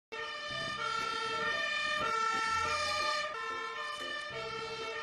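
Fire engine's two-tone siren, sounding continuously and alternating between a high and a low note.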